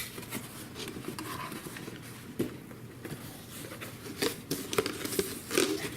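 Packaging being handled as a cardboard box is unpacked: a scatter of light taps, scrapes and rustles.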